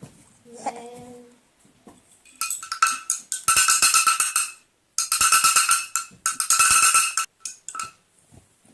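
A jingling rattle shaken hard in four bursts of about a second each, rapid and ringing, after a brief baby vocalisation about a second in.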